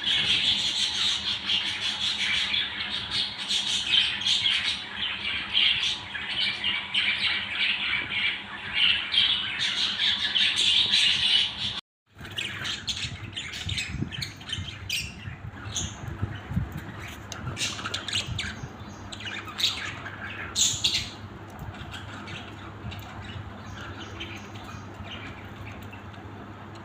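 Pet budgerigars chattering and squawking: a dense, continuous flock chatter for about the first half, then a brief cut to silence. After it come sparser, separate calls over a steady low hum.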